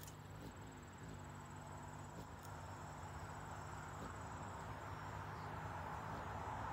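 Low hum of a hovering hummingbird's wings at the feeder, with an insect's thin, steady high trill that stops about two-thirds of the way through. A broad rush of passing traffic swells near the end.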